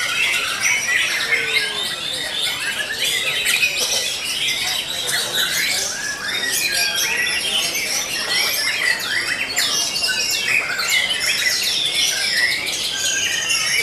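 Caged songbirds singing at a bird-song contest, many at once: a dense, unbroken chorus of overlapping whistles, trills and rapid sharp calls.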